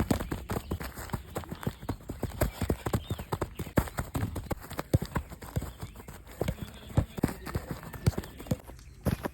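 Quick, uneven taps and thuds of a football being played with football boots: close ball touches and running footsteps, several impacts a second.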